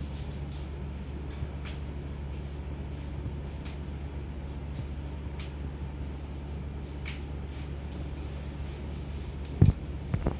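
Steady low hum with faint scattered ticks and rustles, then a short, loud low thump near the end, followed by a smaller one.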